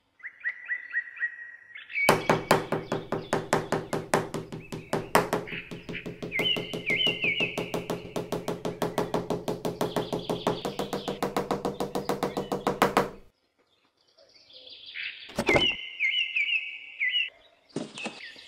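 Rapid, even tapping, about five taps a second for some eleven seconds, over a sustained tone that shifts pitch twice. Quick high bird chirps come in twice, the second run near the end.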